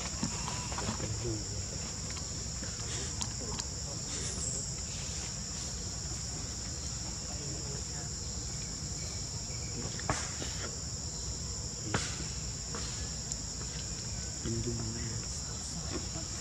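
Steady high-pitched drone of insects, with a low rumble underneath and two sharp clicks in the second half.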